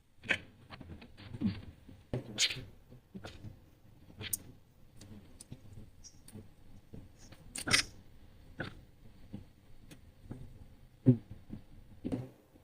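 Irregular clicks, knocks and rustles from hands working on the plastic covers of a split AC indoor unit. The sharpest click comes a little before the middle, and a few knocks come near the end.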